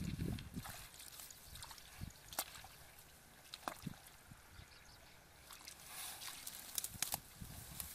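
Hands rustling through grass and working in wet mud, with faint squelches and scattered small clicks and crackles.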